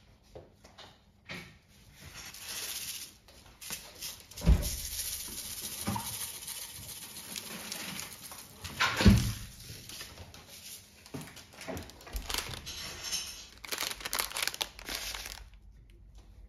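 Rainbow sprinkles shaken from a plastic shaker jar, pattering and rattling onto an ice cream cup, with two heavier knocks. Near the end, crinkling plastic wrapper.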